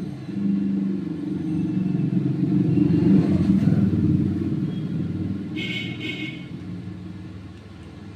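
A motor vehicle's engine running close by, growing louder to a peak about three seconds in and then fading away, as a vehicle passing by does. A short high-pitched sound comes about six seconds in.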